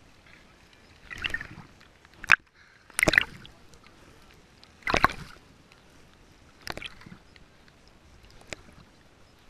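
River water sloshing and slapping against a GoPro sitting at the waterline: about six short, irregular splashes, the loudest around three and five seconds in.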